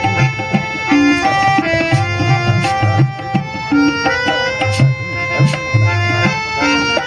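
Instrumental interlude of a Gujarati sugam sangeet song: tabla playing a steady rhythm with deep bayan strokes, under a sustained harmonium melody.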